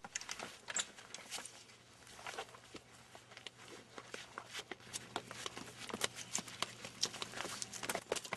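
Faint rustling and light footsteps of people getting up from folding lawn chairs and walking on grass: a steady scatter of small clicks and crackles.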